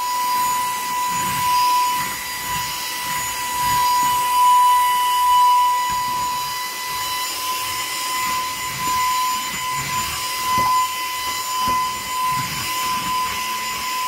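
Saker mini cordless handheld vacuum with its brushless motor running steadily in a high-pitched whine as it sucks spilled flour and dust off the floor.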